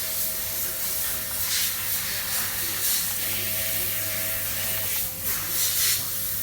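Kitchen range hood extractor fan running: a steady electric motor hum under a rushing hiss of air, with a slightly higher tone coming in twice for about a second and a half.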